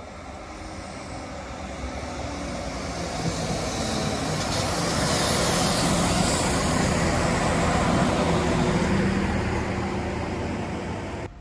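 Transport for Wales diesel multiple unit approaching and passing close by: engine and wheel-on-rail noise grow louder over about five seconds and stay loud as the carriages go past, then cut off suddenly near the end.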